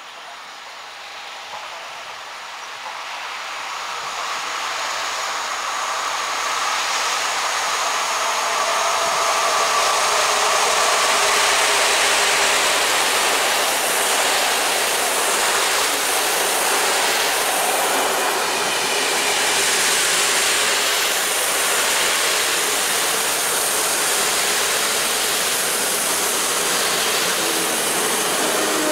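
An intercity passenger train hauled by an EP08 electric locomotive approaches and runs past. It grows steadily louder over the first several seconds, then gives a steady rolling noise of coach wheels on the rails as the carriages go by.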